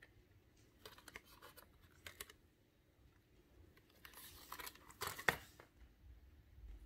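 Faint handling sounds of fingers on a cardboard 3D-puzzle model: a few light clicks and scrapes, then a short spell of rustling about four seconds in that ends in one sharper click.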